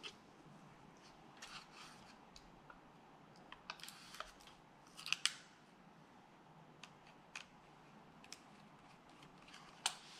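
Scattered small clicks and scrapes of hand-work on a laptop's case and internal parts, with the loudest cluster of clicks about five seconds in and a sharp click near the end.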